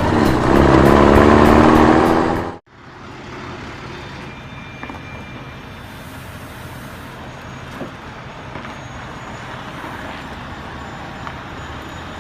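A loud pitched, music-like sound stops abruptly about two and a half seconds in. A truck's engine then runs steadily.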